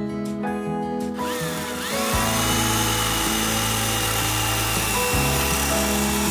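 A mini chainsaw starts about a second in, its motor whine rising and then holding steady as it runs, over acoustic guitar background music.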